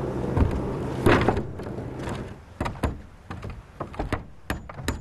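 Loose wooden roof shingles clattering as they are carried and handled, with a loud clatter about a second in. About halfway through this gives way to a run of sharp hammer blows, roughly two a second, as larch shingles are nailed onto the roof.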